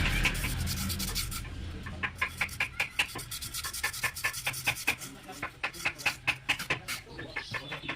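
Hand rubbing or sanding on a brake part. A steady rough rub for the first second and a half gives way to many short, quick strokes, several a second.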